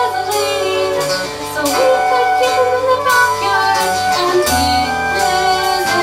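Live band playing an instrumental break: a flute carrying the melody in held notes over electric bass, acoustic guitar strumming and drums.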